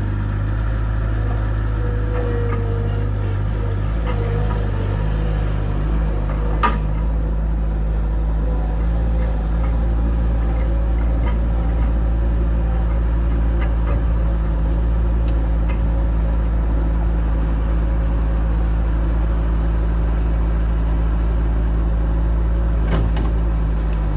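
Bobcat 753 skid steer's diesel engine running at a steady speed, with one sharp knock about six and a half seconds in.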